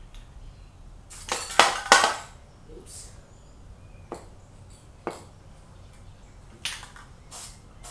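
Krylon camouflage spray paint can in use: a loud burst of about a second shortly after the start, then a few short hisses and clicks.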